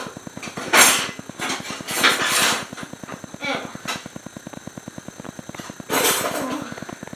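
Kitchen utensils and cookware being handled: several short clattering, scraping noises over a steady, fast pulsing hum.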